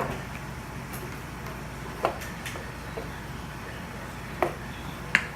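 Four short knocks spaced a second or two apart over a steady low hum.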